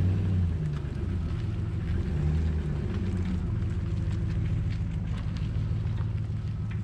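A vehicle on the move: a steady low engine drone with road noise.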